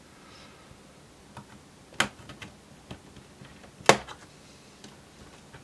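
Plastic clips of a laptop's base panel snapping free as a plastic pry tool works along the back edge: two sharp clicks about two seconds apart, with a few fainter ticks between.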